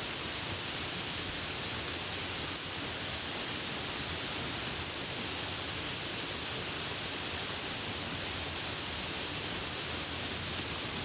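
Steady, even hiss of heavy rainfall, with no thunder.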